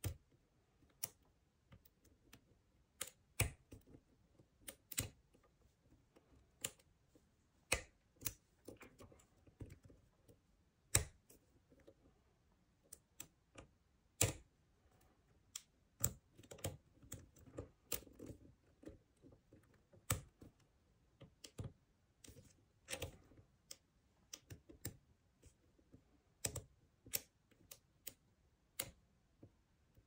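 Small, sharp metallic clicks and ticks of a lock pick working the pin stacks of a CISA five-pin euro cylinder during single pin picking. The clicks come irregularly, some singly and some in quick clusters, a few of them much sharper than the rest.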